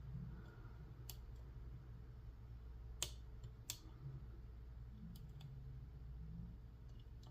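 Faint metallic clicks of a lock pick working the pin stack of an Assa 500 cylinder core in an Assa Ruko 2 padlock: a few sharp, widely spaced ticks, the loudest about three seconds in, over a low steady hum.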